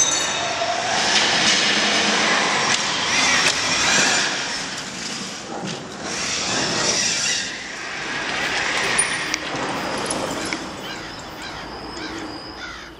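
KTM Freeride E electric dirt bike riding hard on loose ground: the electric motor whines, rising and falling with the throttle, over the rush of knobby tyres spinning and throwing dirt, fading near the end.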